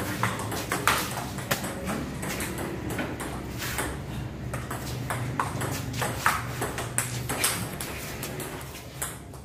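Table tennis rally: the ball clicks sharply off the paddles and table, about a hit every half second, until the rally ends about three-quarters of the way in.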